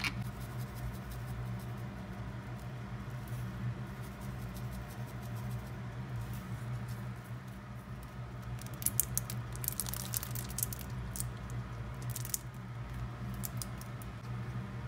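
Sliced garlic chives, onion and carrot sizzling in a frying pan, with a run of sharper crackles in the second half over a steady low hum.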